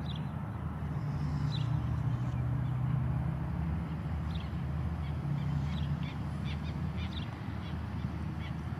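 Osprey calling: short, high, sharp chirps, a few at first and then a quicker run of them from about halfway, over a steady low rumble.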